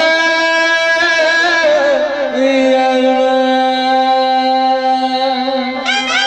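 Pashto folk song: a male singer holds long, drawn-out notes over a harmonium, dropping to a lower held note a little over two seconds in. A clarinet comes in near the end.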